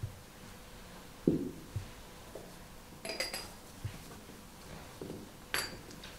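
Altar vessels being handled on a cloth-covered table: small glass cruets and a metal chalice clink lightly, several quick clinks around the middle and one more near the end, with a dull knock about a second in as something is set down.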